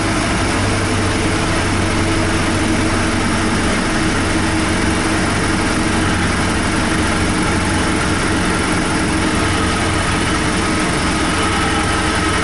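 Cessna 172 seaplane's piston engine and propeller running with a steady, unchanging drone.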